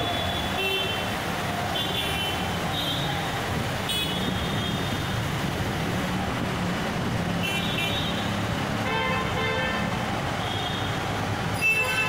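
Slow traffic on a flooded road in heavy rain: a steady wash of engine, rain and water noise, with short vehicle horn toots several times.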